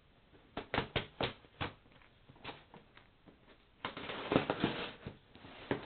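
A cardboard shipping box being handled to open it: a handful of sharp taps and knocks in the first couple of seconds, then a stretch of scraping and rustling from about four seconds in.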